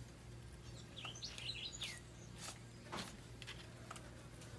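Faint bird chirps, a quick cluster of them about a second in, with a few soft clicks and a low steady hum underneath.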